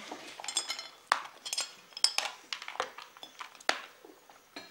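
Cutlery and serving spoons clinking against plates and dishes as food is served and eaten at a dinner table: an irregular scatter of sharp clinks.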